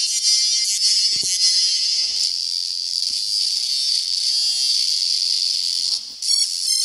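Electronic music loops and samples triggered by tapping pads on a touchscreen drum-pad app, heard thin and tinny through the device's small speaker with almost no bass. Just before the end the sound briefly drops away, and a quick, even pulsing loop comes in.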